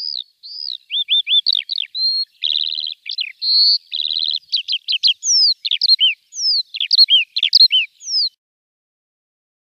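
A songbird singing a fast, varied song of chirps, quick downward-slurring whistles and short rapid trills.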